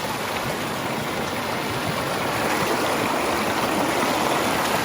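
Steady rush of flowing stream water, growing slightly louder.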